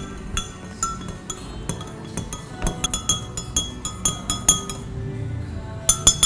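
Metal spoon stirring liquid in a glass jug, clinking repeatedly against the glass, quickest in the middle, with the loudest clinks near the end.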